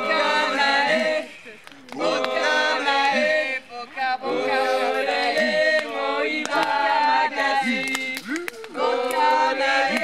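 A group of people singing together without instruments, several voices at once, in phrases broken by a few short pauses.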